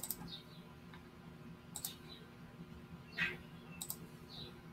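Computer mouse clicking three times, about two seconds apart, each a quick press and release, over a faint steady hum. A brief soft noise comes about three seconds in.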